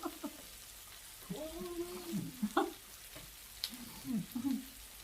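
Meat sizzling on a Tefal tabletop gourmet grill, a steady hiss with a few sharp clicks of utensils. Brief low voice sounds come a little over a second in and again near the end.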